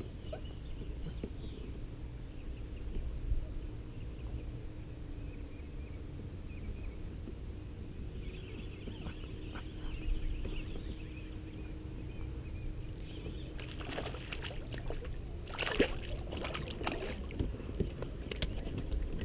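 Steady low rumble of a kayak sitting on the water, with a faint steady hum. In the last few seconds there is a run of sharp clicks and rattles as fishing tackle is handled.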